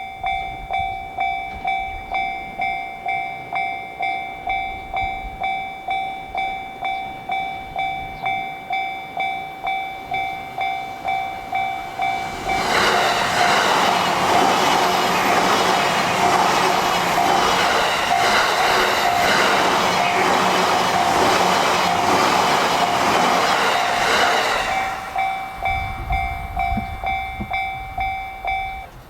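Japanese level-crossing warning bell ringing at about two strikes a second. About twelve seconds in, a JR Sobu Line train passes and its rumble and wheel noise cover the bell for some twelve seconds; then the bell is heard again and stops just before the end.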